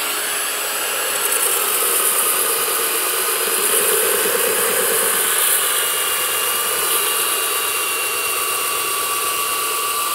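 Cordless belt sander running steadily under load, sanding the edge of a curved deck board down to a drawn line. It makes one continuous grinding noise with a faint steady motor whine.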